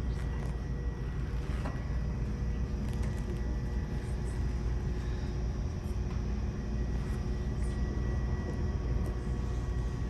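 Steady low rumble with a faint steady hum: the background room noise inside a large library building, with a few faint ticks here and there.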